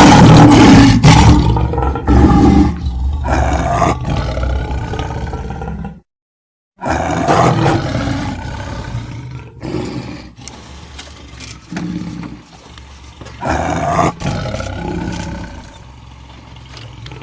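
A large wild animal roaring and growling in repeated deep calls, loud at first. The calls break off for a moment of silence about six seconds in, then resume as a series of shorter calls every second or two that get quieter toward the end.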